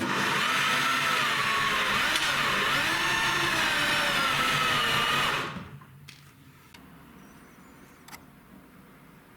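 A hand-held power tool's electric motor running under load, its pitch wavering up and down, then winding down and stopping about five and a half seconds in.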